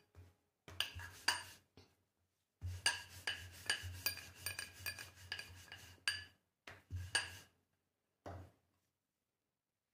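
Wooden rolling pin rolling out a methi paratha on a rolling board: rubbing strokes with light clicks and knocks, in several stretches, the longest from about three to six seconds in.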